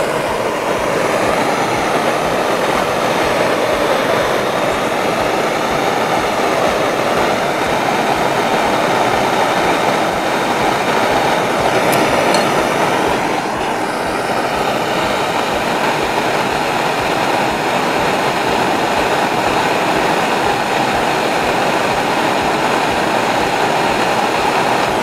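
Handheld blowtorch on a fuel cylinder burning with a steady hiss, its flame heating a steel rod.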